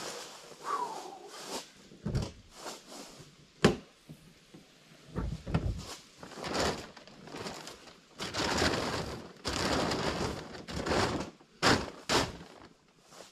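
Jeep rear liftgate unlatched with a sharp click and raised, then plastic tarp rustling in the cargo area and two sharp knocks near the end.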